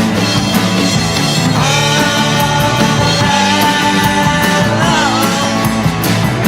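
Rock music: a full band with steady drum and cymbal hits under a long held melody note that bends in pitch about five seconds in.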